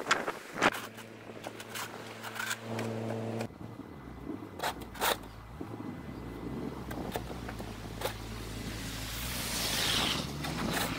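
A snow shovel scraping twice at the start, then a BMW 328i's engine running steadily, with a swelling rush of noise about nine to ten seconds in.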